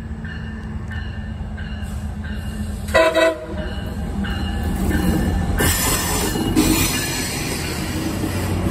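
A bell rings about twice a second as a MARC MP36 diesel locomotive approaches. About three seconds in, the horn gives two quick toots, the loudest sound here. Then the locomotive's diesel engine and the wheels on the rails build to a loud rumble and hiss as the train runs past close by.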